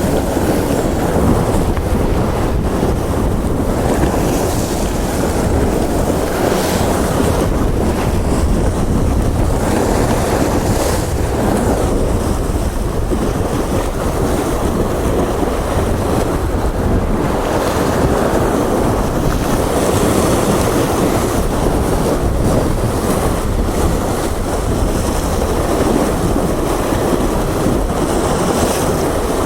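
Steady loud rush of wind on the microphone over heavy sea swell washing against the shore.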